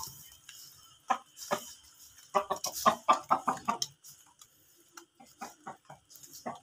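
Aseel rooster clucking: a quick run of short clucks in the middle, with a few scattered clucks before and after.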